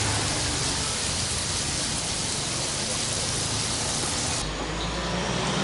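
Tomatoes, red chilies and shallots sizzling steadily as they fry in hot oil in a non-stick pan. About four seconds in, the sizzle thins and a low rumble joins it.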